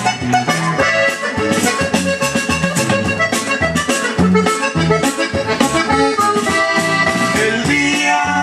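Accordion-led Mexican regional dance music played over a DJ sound system: an instrumental passage with a steady beat and bass, the accordion carrying the melody.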